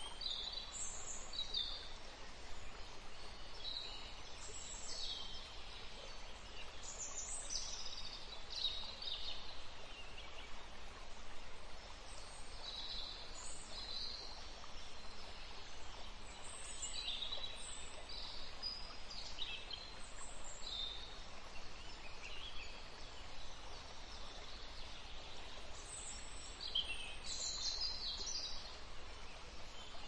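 Canaries and Gouldian finches giving many short, high chirps and calls scattered throughout, over a steady background hiss.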